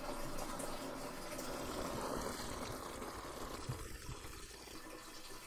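Red wine siphoning through a tube and pouring into a plastic bucket: a steady liquid trickle that eases slightly toward the end. The clear wine is being racked off the yeast sediment.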